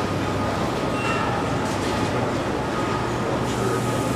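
Steady rumble and low hum of machinery on a large aircraft assembly floor, with a thin high tone running through it.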